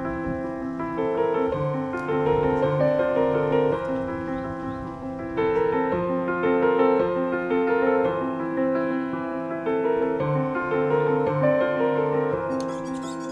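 Background piano music playing a repeating melody of held notes over lower notes.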